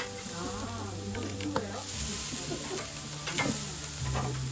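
Meat sizzling on a hot barbecue grill, a steady frying hiss, with two sharp clicks.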